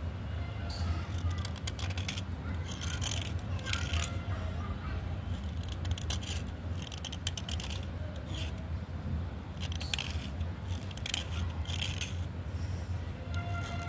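Small blade shaving a wet slate pencil: short, crisp scraping strokes repeating irregularly, about one or two a second.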